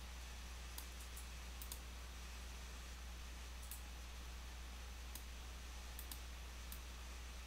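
Computer mouse clicks, about ten, scattered and some in quick pairs, over a steady low electrical hum.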